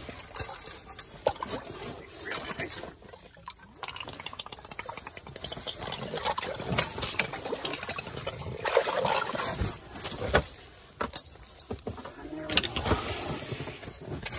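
Water splashing and sloshing in an ice-fishing hole as a hooked whitefish thrashes at the surface and is pulled out, coming in uneven splashes with a few sharp knocks.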